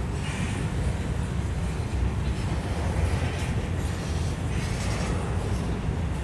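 Covered hopper cars of a Norfolk Southern freight train rolling past: a steady rumble of steel wheels on rail, with a few brief, faint higher squeals.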